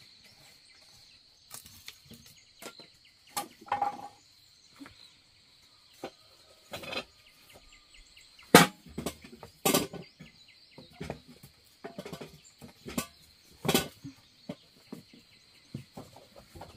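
Sticks of firewood knocking and clattering as they are handled and laid into a hearth: a series of separate sharp knocks, the loudest a little past halfway. A steady high-pitched insect drone runs underneath.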